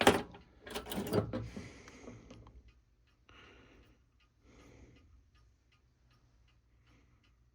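Small metal clock parts being handled on a workbench: a sharp clack, a few light knocks and some brief rustling. After about five seconds a clock ticks faintly and steadily, a few ticks a second.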